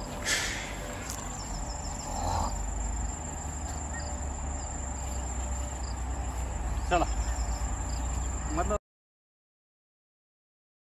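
Insects trilling steadily in a constant high-pitched chorus, with a low rumble underneath. The sound cuts off suddenly about nine seconds in, leaving total silence.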